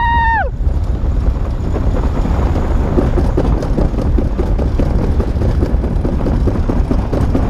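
Summer luge sled running fast down a stainless-steel trough track: a steady rumble of the sled on the metal channel, with wind buffeting the camera microphone and small rattles throughout. A high-pitched squeal fades out about half a second in.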